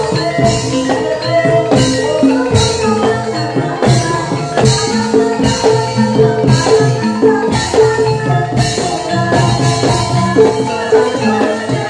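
Live Javanese gamelan music accompanying an ebeg hobby-horse dance: tuned percussion playing melodic notes over drums, with a bright clash recurring about once a second.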